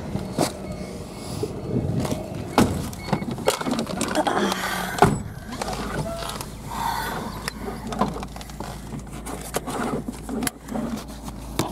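Knocks, clicks and rustling as a person climbs into the back seat of a car and settles in, with a heavier thump about five seconds in. After that the car's low steady hum is heard inside the cabin.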